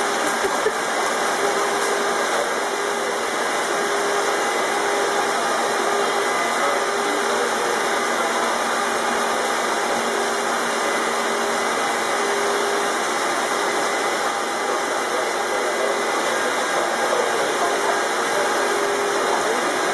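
Steady rushing noise with a faint low hum underneath, from the turtle tank's water circulation: water jetting into the tank through its PVC inflow pipe.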